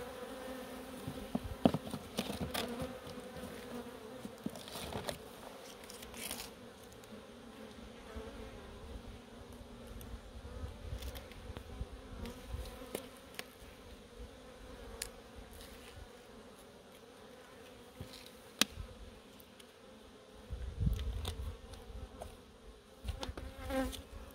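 Honeybees buzzing steadily around open hives, with scattered sharp clicks and knocks and a low rumble twice.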